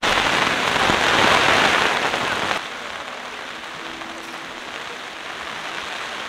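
Heavy rain falling on a tent's flysheet and the surrounding plants, a steady hiss. About two and a half seconds in it cuts suddenly to quieter, lighter rain.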